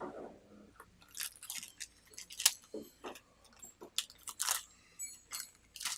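Irregular metal clicks and knocks as a rivet squeezer head is taken out of a bench vise and handled.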